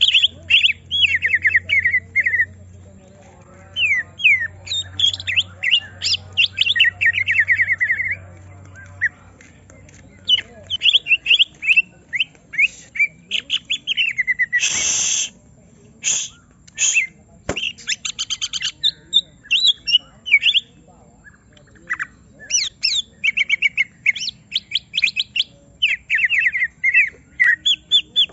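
Cucak ijo (green leafbird) singing in an agitated, provoked state: rapid runs of sharp, fast-repeated chirps in short bursts, one after another. About halfway through there is one harsh, noisy burst.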